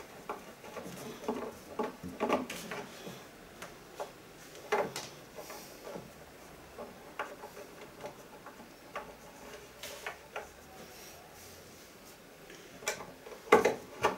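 Scattered light clicks and knocks of a hand screwdriver and screw against wood, as a screw is worked into the underside of a wooden cabinet by feel in an awkward spot. The clicks are irregular, with a couple of louder knocks.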